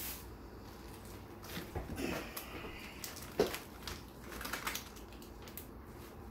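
Thin plastic produce bag crinkling as it is pulled off a napa cabbage and dropped on a table, with scattered light knocks and handling noises and one sharper knock about three and a half seconds in.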